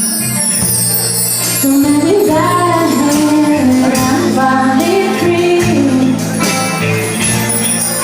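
Live band playing a slow pop ballad: a melodic lead line rises and falls over a steady band accompaniment, with a high shimmer at the start.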